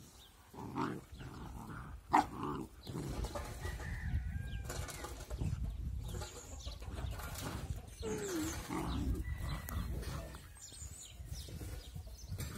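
Puppies play-fighting: low growls and scuffling on grass, with a sharp knock about two seconds in and a few short high-pitched calls.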